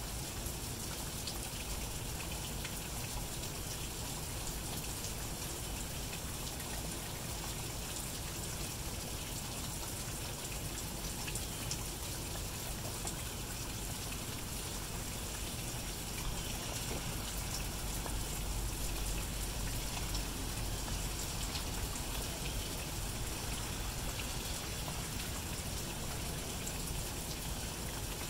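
Steady light rain falling, with fine patter of drops. A low rumble swells for a few seconds past the middle.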